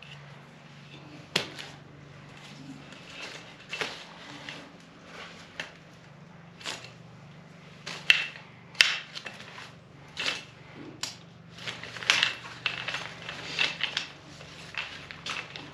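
Frame of a compact folding camping chair being handled and collapsed: irregular clicks and knocks of its poles and joints, with some rustle of the seat fabric.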